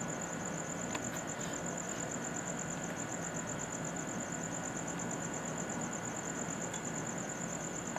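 Night insects trilling steadily: a continuous high, rapidly pulsing tone over a steady background hiss.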